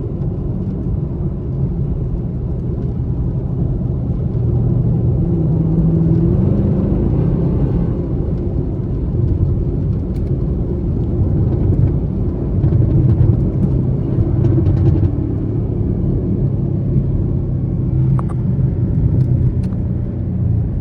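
Chevrolet Camaro SS's 6.2-litre V8 engine and exhaust running steadily under way, its pitch drifting up and down a little with the throttle.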